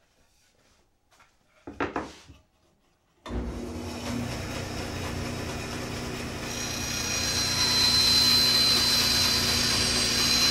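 A brief rub and knock of a plywood board being handled, then a band saw switched on about three seconds in and running steadily. From about six and a half seconds it grows louder with a high-pitched whine as the blade cuts into the 3/4-inch plywood.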